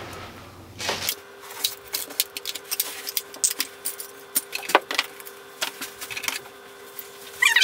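Small hard plastic toys clicking and clattering together as they are picked up and handled: a run of quick, irregular clicks.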